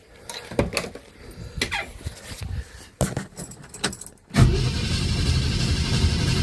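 A few scattered clicks and knocks, then about four seconds in the 1965 Ford Thunderbird's V8 starts suddenly and runs steadily with a heavy rumble. The carburetor is flooding fuel out of its top.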